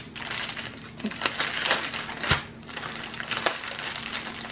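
Small clear plastic bags of diamond-painting drills crinkling and crackling as they are handled and unfolded, with one dull knock a little past halfway.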